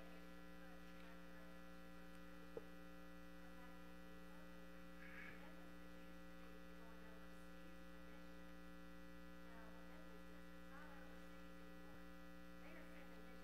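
Near silence with a steady electrical mains hum in the sound system, and a single faint click about two and a half seconds in.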